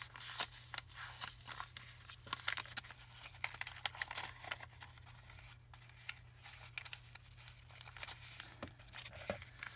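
Paper and card being handled and rearranged by hand: irregular rustling and crinkling with small taps, over a steady low hum.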